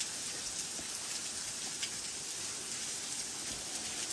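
Steady hiss of falling water, even and unbroken, with a few faint ticks over it.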